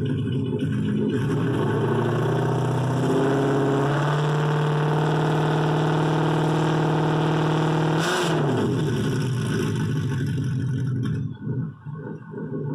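2019 Ford Mustang GT's 5.0 V8 through a loud race exhaust: idling, revved up and held at high rpm for about four seconds, then released with a brief crack as the revs fall back to idle. Near the end the engine is switched off.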